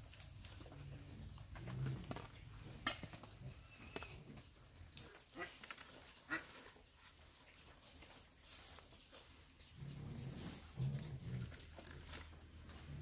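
Faint animal calls, short low-pitched sounds in small groups, mostly near the end, with scattered light clicks and knocks.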